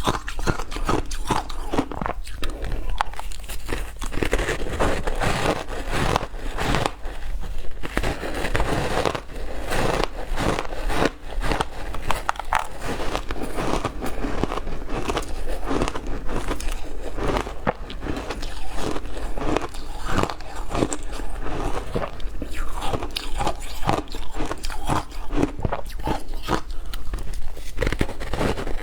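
Ice being bitten and chewed up close, a continuous run of loud, irregular crunches.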